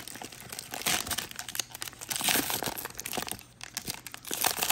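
Trading-card pack wrapper crinkling and tearing as it is ripped open by hand, a dense crackle with several louder rushes.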